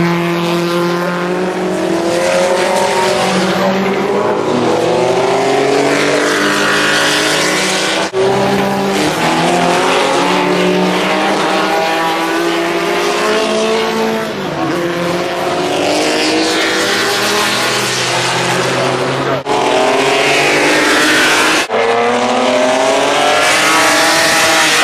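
Historic single-seater racing cars passing at speed, their engines loud and revving, the pitch rising and falling over and over as the cars go by and change gear.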